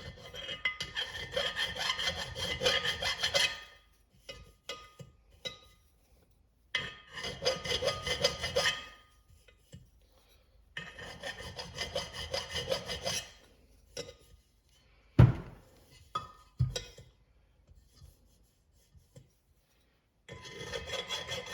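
A burr on a transmission bushing bore being worked off by hand: rapid rasping strokes of metal rubbing on metal in four bouts of a few seconds each. A sharp knock about fifteen seconds in, and a lighter one soon after, is the loudest sound.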